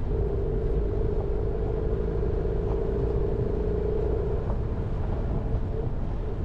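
Jeep Renegade driving, a steady low rumble of engine and tyre noise, with a steady whine over it for about four and a half seconds that then stops.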